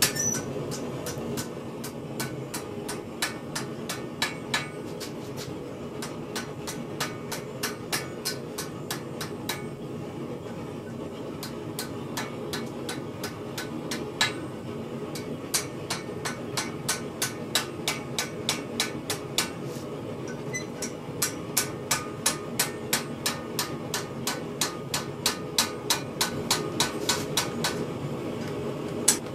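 Hammer striking a steel acanthus leaf worked in repoussé over a stake: a steady run of light blows, about two to three a second, softer through the middle and heavier again near the end, over a steady low hum.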